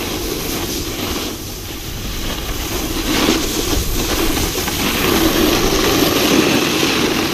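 Wind rushing over a GoPro's microphone while riding fast downhill, mixed with the hiss and scrape of board and ski edges on packed snow, getting louder about three seconds in.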